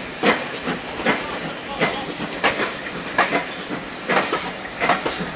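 Footsteps walking at a steady pace across a footbridge deck, about one and a half steps a second, over a steady hiss.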